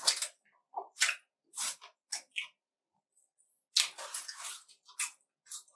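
Close-miked chewing of a fried chicken burger and French fries: short wet mouth clicks and crunches, with a denser run of crunching about four seconds in.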